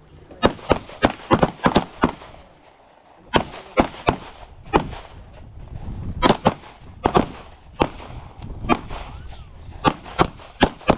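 Gunshots from semi-automatic firearms fired in quick strings: about twenty sharp shots in uneven groups of two to four, with short pauses between groups.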